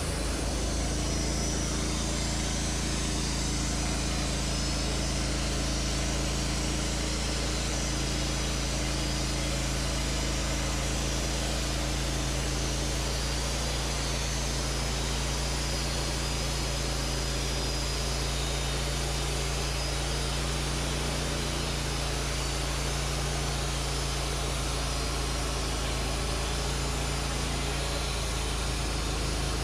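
Wood-Mizer LT40 portable band sawmill cutting a debarked ash log: the engine runs steadily under load while the band blade saws through the wood, an even sawing hiss over the engine note.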